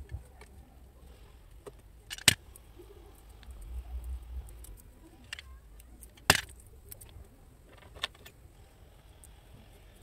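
A utility knife blade cutting and scraping the plastic sheath of a white cable, with small sharp snaps and light handling rustle. The two loudest snaps come about two seconds in and about six seconds in.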